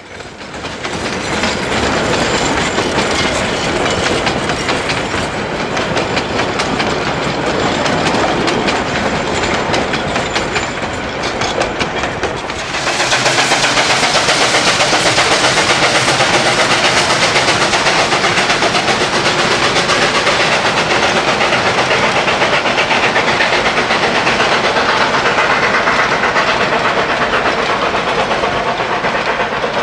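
Narrow-gauge freight train of wooden stock cars rolling past on jointed rail, a steady rapid clickety-clack of wheels over the rail joints. About 13 s in it changes to a louder, even rushing noise of the steam train passing.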